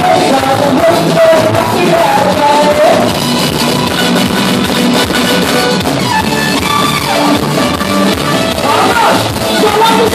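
Live chutney band performance: a woman singing into a microphone over keyboard and drum accompaniment. The singing drops out for a few seconds in the middle while the band plays on.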